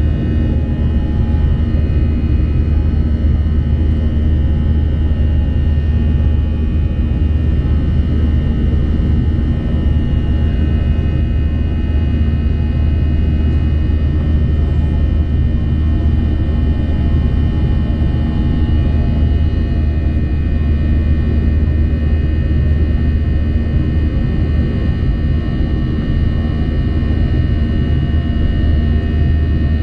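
Steady cabin noise of a jet airliner in flight, heard from inside the cabin: a deep, even rumble with faint steady high tones from the engines over it.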